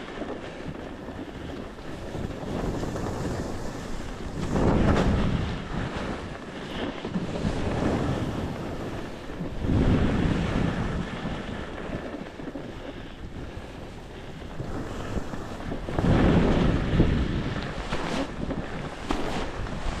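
Wind buffeting the microphone over the steady hiss of skis sliding on snow, swelling into three louder rumbling gusts, about five, ten and sixteen seconds in.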